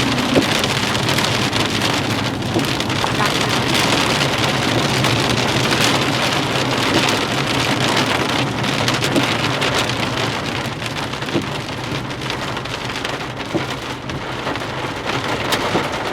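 Heavy rain falling on a vehicle, a dense patter of drops over a steady low hum from the vehicle, easing slightly near the end.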